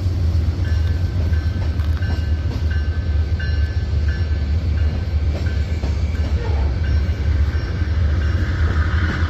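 Loaded open-top gravel hopper cars rolling slowly past, a steady low rumble of steel wheels on the rails. A faint high-pitched whine comes and goes during the first few seconds.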